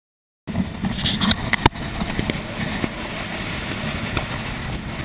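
Small outboard-powered boat running at speed: steady engine and water noise with wind on the microphone, cutting in abruptly about half a second in, with a few knocks near the start, one of them sharp and loud.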